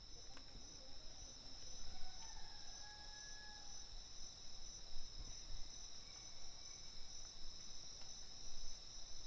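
Insects droning steadily outdoors in two high, even bands, with a faint bird call or two about two seconds in.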